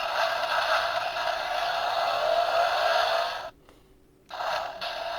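Two electronic sound effects from the built-in speaker of the Bandai DX Kamen Rider Zero-One motorcycle toy in its motorcycle mode. The tinny, hissy sound rises slowly in pitch, cuts out for under a second about three and a half seconds in, then a second effect starts with another rising tone.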